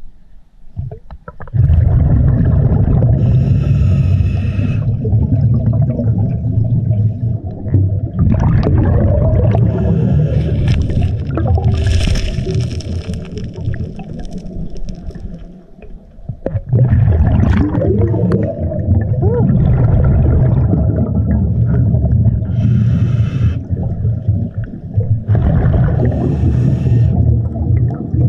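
Scuba diver breathing through a regulator underwater. There are two long exhales, each a loud low rush of bubbles, and a hissing breath in between them near the middle.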